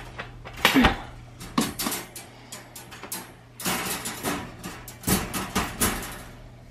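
Wire dog crate clinking and rattling as its metal door and bars are handled: several clusters of sharp metallic clicks.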